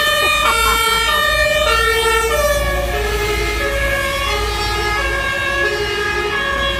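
A fire engine's two-tone siren alternates between a high and a low note. The whole pattern drops slightly in pitch about three seconds in as the engine passes. Heavy rain hisses steadily underneath.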